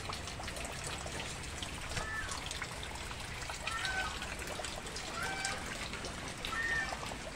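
Floodwater trickling and running steadily where an overflowing drain has flooded the ground. A few short, faint high calls repeat about every second and a half over the water.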